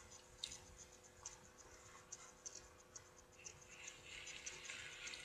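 Near silence with faint scattered clicks and a soft rustle about four seconds in, from quiet chewing and a paper napkin being handled.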